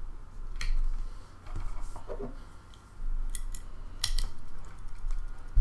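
Scattered light clicks and taps over a steady low hum, with a low thump near the end.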